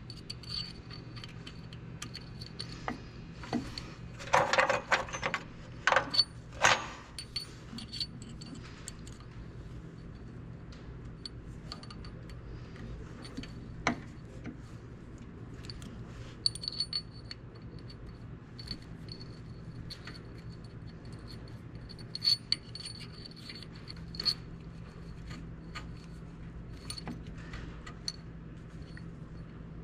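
Metal clinks and rattles of a hex key and bolts being worked on an aluminium toothed timing pulley, in a dense run about four to seven seconds in and scattered single clinks after. A steady low hum runs underneath.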